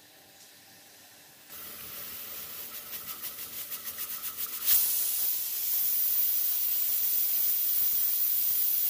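Premier pressure cooker reaching pressure: about a second and a half in, steam starts hissing out under the weight valve in pulses that come faster and faster. Near the middle it bursts into a loud, steady hiss of escaping steam, the cooker's whistle that signals full pressure.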